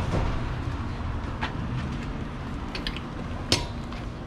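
Hand tools being handled at a truck's front wheel: a few light clicks and one sharp knock about three and a half seconds in, over a steady low rumble.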